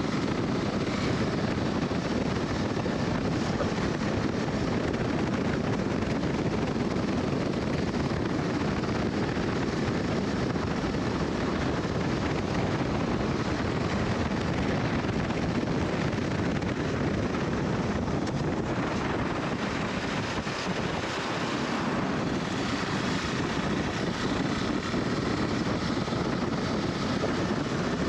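KTM 390 Adventure's single-cylinder engine running steadily under way, with wind buffeting the microphone.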